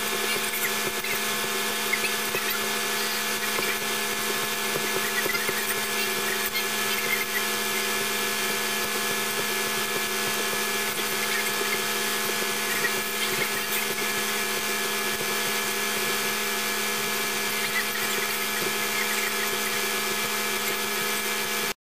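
Electric motor of a homemade wheel-spinning stand running steadily with a constant whine, turning a freshly painted steel wheel. It cuts off suddenly near the end.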